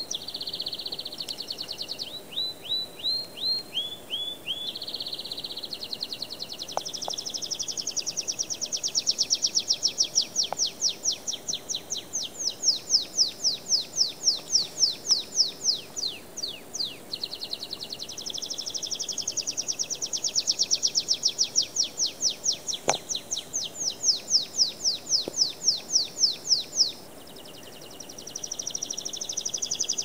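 Domestic canary singing: long runs of rapid repeated notes rolled into trills, one run after another, with a brief pause near the end before the song picks up again.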